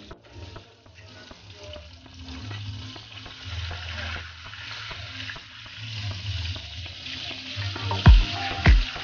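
Whole milkfish sizzling in hot oil in a wok, the spatter growing louder as a spatula works at and turns the fish. Background music comes in near the end with two heavy bass-drum beats.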